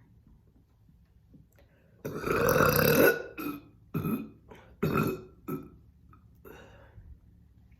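A woman burping, brought up by chugging carbonated orange soda: one long, loud burp about two seconds in, then several shorter, quieter ones.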